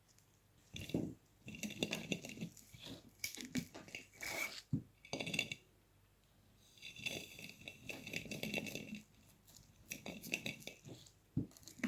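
Pine cones and sugar being handled in a jar by gloved hands: rustling, crunching scrapes and small knocks in several bursts with short pauses between them.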